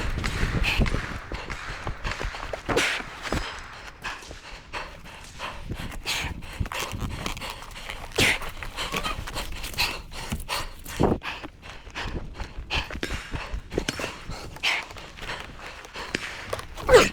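A competitor breathing hard after exertion, with footsteps and gear rattling and knocking, heard close on a body-worn camera; a sharper thump near the end.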